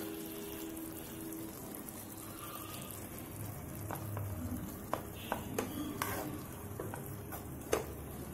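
Cooked basmati rice being tipped from a metal plate into a pot over a faint steady hiss, with a handful of light metal clicks and taps in the second half as the plate and utensil knock against the pot.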